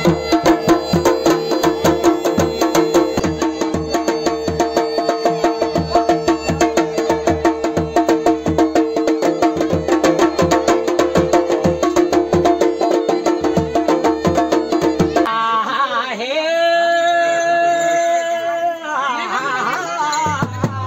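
Chholiya folk band playing: masakbeen bagpipes holding a steady drone and melody over fast dhol and damau drumming. About fifteen seconds in, the drums and drone stop, leaving one held, wavering melody line.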